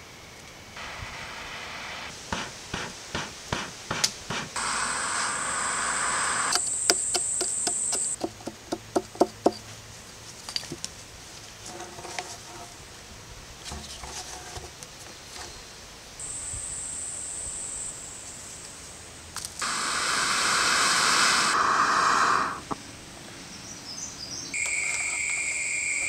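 Sharp wooden knocks and taps in quick runs, and a few seconds of loud rushing noise, as a hole is burnt and scraped out of a log with hot coals and wooden tongs. A high steady insect buzz comes and goes behind it.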